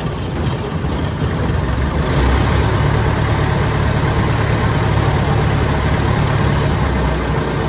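A motor engine running steadily with a low hum, getting louder about two seconds in.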